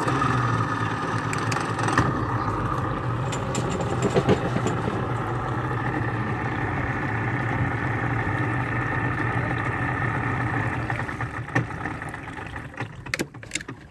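Pontoon boat's outboard motor running steadily while towing, easing off near the end, with a few sharp knocks.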